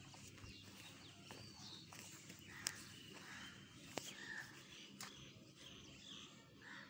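Faint chirping of small birds, with a few light clicks.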